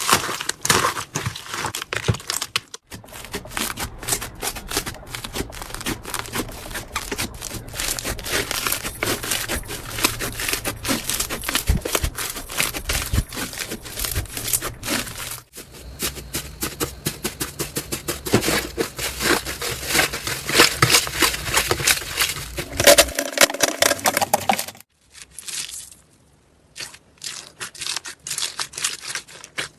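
Slime being squeezed and pressed by hand: a dense stream of small crackles and pops. The sound changes abruptly about three, fifteen and twenty-five seconds in, and is quieter and more broken up near the end.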